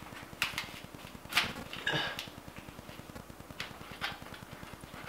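An HVAC air filter being forced into a return-air vent grille: a series of sharp clicks, knocks and scrapes as the filter frame and hinged grille are handled. A faint steady low buzz runs underneath.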